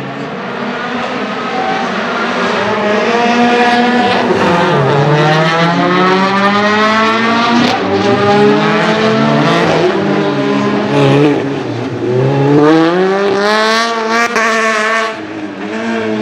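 A Lotus Exige Cup 260's supercharged four-cylinder engine is revving hard as the car races past. Its pitch repeatedly climbs and drops through gear changes and lifts off the throttle, and there are short, sharp crackles near the end.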